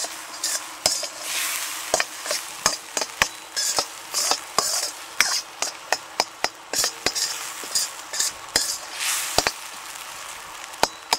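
A spatula stirring and scraping goat brain frying in oil in a steel karahi, with many irregular sharp clinks of the spatula against the pan over a steady sizzle.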